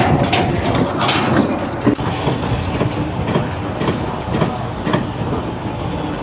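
Steady mechanical rumbling with irregular clanks and clatter running through it.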